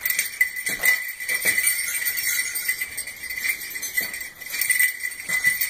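A strand of jingle bells hanging from a door handle jangles over and over as a small dog rings them, the usual way a bell-trained dog asks to be let outside.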